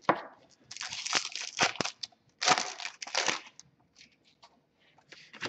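A 2014-15 Fleer Showcase hockey card pack being torn open, its wrapper crinkling. There are two long crinkling bursts in the first few seconds, then a few short crackles.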